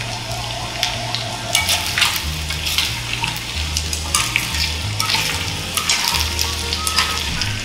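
Fried chicken pieces sizzling in garlic butter sauce in a small nonstick saucepan, with sharp crackles. About four seconds in, chopsticks start turning the pieces over in the sauce.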